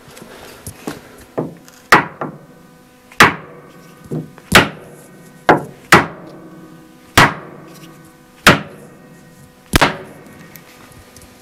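Wooden mallet striking a wooden sailboat toe rail on a workbench: about eight sharp raps, roughly one a second, each with a brief ringing, plus a few lighter taps. The blows are meant to break a glued joint in the rail, which is not giving.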